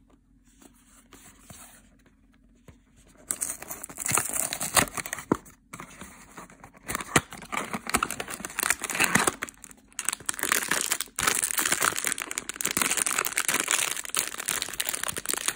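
Cardboard blind box being opened, then the foil packet inside crinkling and being torn open. Quiet for about the first three seconds, then steady crinkling and tearing with short pauses.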